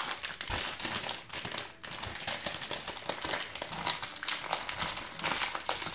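Plastic foil blind-bag packet crinkling and crackling in the hands as it is gripped and torn open, with a short lull about two seconds in.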